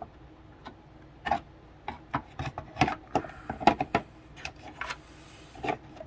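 Irregular small clicks and taps of hands handling small plastic parts and wiring, a dozen or more in a few seconds, with some light rubbing in between.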